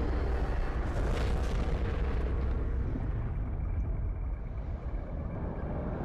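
Deep, steady rumble of cinematic explosion sound effects, with a short whoosh about a second in. The hiss above the rumble dies away after about two and a half seconds.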